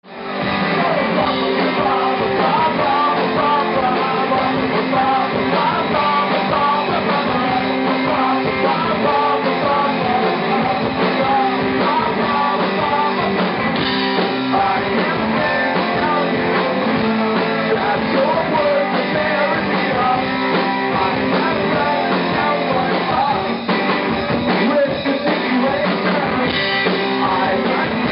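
Rock band playing live, with electric bass, drums and keyboard under a man singing into a microphone. The music fades in within the first second.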